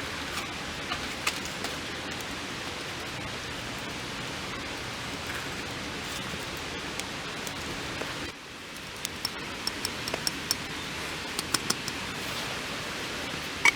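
Steady rain falling on a tarp, with single heavier drops tapping on it. The hiss dips for a moment a little past halfway, and the drop taps come more often after that.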